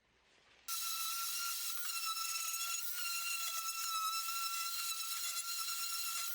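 A high-speed woodworking power tool running steadily with a high-pitched whine over a hiss, cutting in suddenly about a second in.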